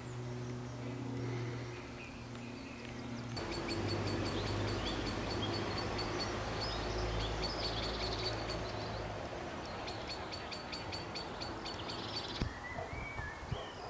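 Garden ambience: small birds chirping, with rapid repeated high chirps through the middle, over a low hum of distant traffic. The background changes abruptly about three seconds in and again near the end.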